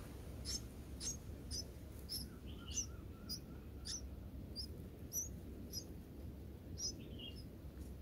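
Red-whiskered bulbul nestlings giving short, thin, high begging chirps, about one to two a second, with a few lower notes a couple of seconds in, over a low steady background rumble.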